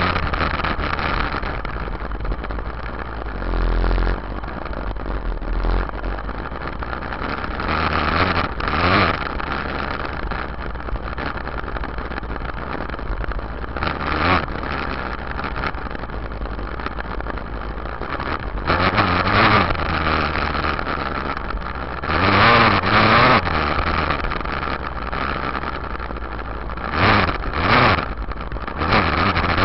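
Yamaha YZ dirt bike engine running under way, recorded from a camera on the rear fender. It runs steadily, with several short bursts of throttle where the pitch rises and the sound gets louder.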